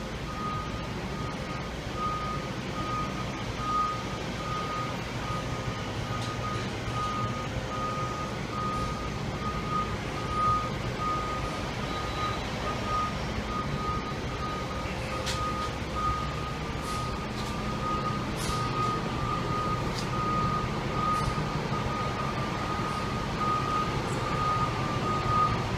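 A high-pitched electronic warning beep repeating without pause over a steady low mechanical hum, as heard beside a fire engine in a firehouse bay. A few light clicks and knocks come in the second half.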